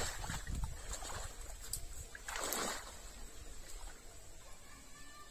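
Pond water sloshing and splashing around people wading waist-deep as they grope along the bottom for snails, with two louder swishes, one at the start and one about two and a half seconds in, then quieter.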